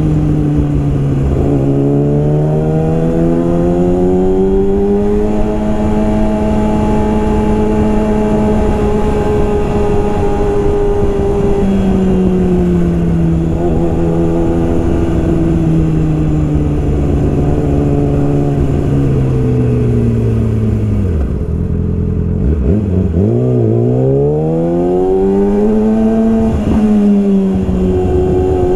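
Yamaha R6 inline-four sport bike running through a full Yoshimura exhaust while being ridden, its engine note climbing and falling with throttle and gear changes. The revs drop low about two-thirds of the way through, then rise steeply under hard acceleration, with a quick blip near the end.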